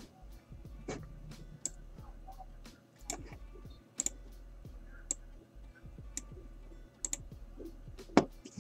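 Irregular sharp clicks of a computer keyboard and mouse in use, a click or two a second.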